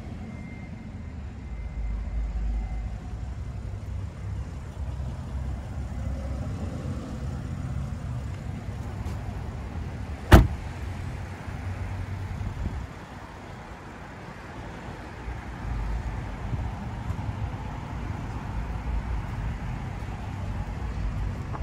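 Steady low rumble of outdoor background noise, with one sharp knock about ten seconds in as the open front passenger door of the BMW 8 Series Gran Coupe is shut.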